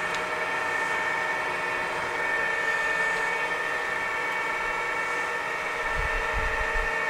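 Acra 2290ACH gap-bed engine lathe running with its spindle at about 530 RPM: a steady, quiet machine hum with several fixed whining tones. A few low thuds come near the end.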